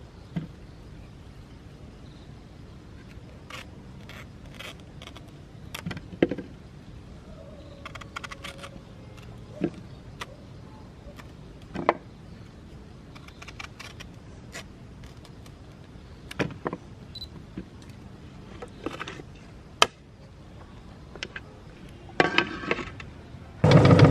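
Scattered light clicks and knocks of handling, then near the end an electric meat grinder's motor switches on abruptly and runs with a loud, steady hum.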